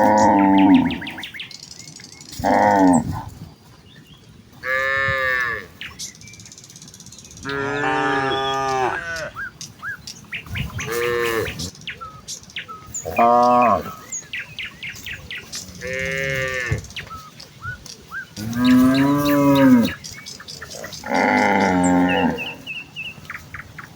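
A herd of cows mooing in turn, about nine long, low moos a couple of seconds apart, some bending up and then down in pitch.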